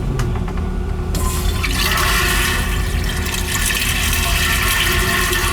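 Marine toilet fixture flushing: rushing water starts about a second in and runs on steadily, over a constant low hum.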